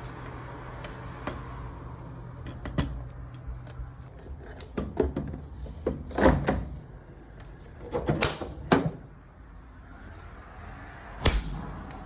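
Scattered clicks and knocks of hands and tools working on a Maytag washer's door and latch, with louder clusters of knocks about five, six, eight and eleven seconds in, over a faint steady hum.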